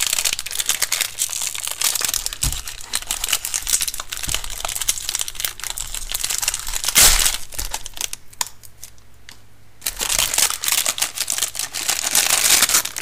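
Thin plastic wrap crinkling and crackling as it is peeled and pulled off a 4x4 speed cube by hand, with a louder crackle about seven seconds in and a short lull soon after.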